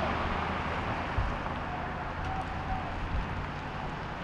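Outdoor city ambience: a steady low rumble of street traffic, with a soft low thump about a second in and a faint thin hum in the second half.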